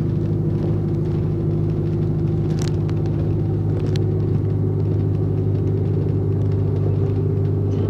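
Bus engine and drivetrain running with a steady low hum and rumble, heard from inside the passenger saloon while the bus drives along. A couple of brief clicks or rattles stand out about two and a half and four seconds in.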